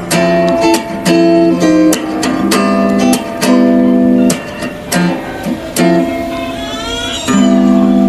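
Background music of strummed guitar chords, changing about once a second, with a short rising run of higher notes near the end.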